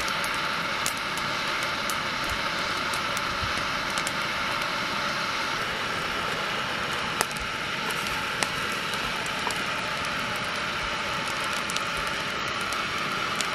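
Canister gas stove burner running under a cooking pot: a steady hiss, with a few faint scattered clicks.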